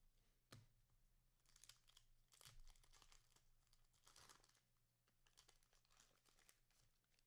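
Faint crinkling and tearing of a sports card pack's plastic wrapper being torn open, in several short bursts.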